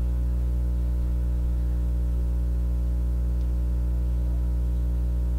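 Steady low electrical mains hum with a string of evenly spaced overtones above it, unchanging in level.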